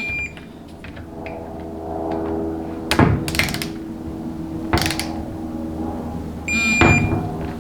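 Tools at work on the bolts of a transmission valve body: a short, steady high-pitched tone near the start and again near the end, with sharp metallic clacks in between.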